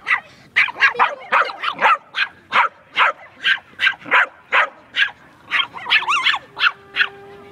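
Chihuahua yapping non-stop at a bull terrier: short, sharp, high-pitched barks about three a second. Near the end a drawn-out call wavers up and down in pitch.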